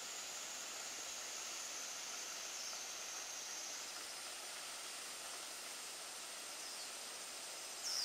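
Steady hiss of Urami-no-taki, a thin, low-flow plunge waterfall, splashing down into its pool. A faint steady high whine sits over it, with a few short high chirps, the last and loudest near the end.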